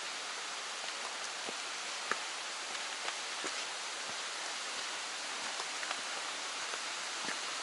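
Steady rush of running water with scattered small drips and ticks, typical of a forest stream and wet trees just after rain.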